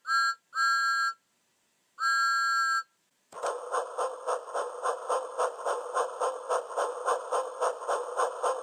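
Steam-train whistle sound effect: three two-note toots, the last two longer. Then, from about three and a half seconds in, a rhythmic chugging of about three beats a second.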